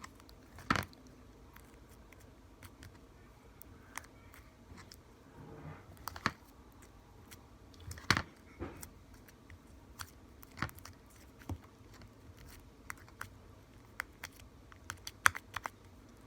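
Sticky homemade glue-and-laundry-detergent slime being worked by hand, giving scattered sharp clicks and pops as it pulls off the fingers, with a quick run of small clicks near the end.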